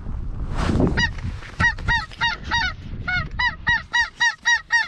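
Snow geese calling: rapid, repeated high honks, about three to four a second, with a brief rush of noise about half a second in.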